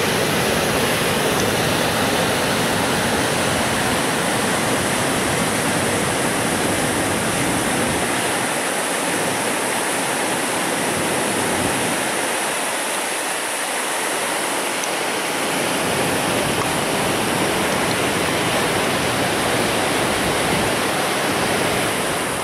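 Steady rushing of fast whitewater, a loud even roar of rapids or falling water.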